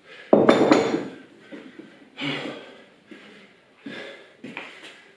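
A pair of dumbbells set down on a tiled floor with a loud metallic clunk about half a second in, followed by several hard breaths from a man winded by exercise.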